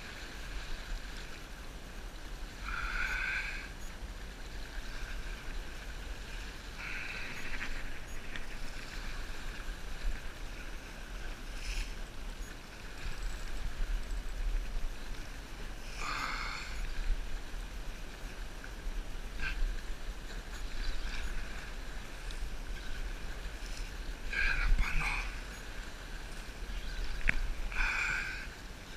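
Spinning reel being wound in against a hooked fish, with water lapping at the rocks and wind rumble on the microphone. Several short buzzes come a few seconds apart.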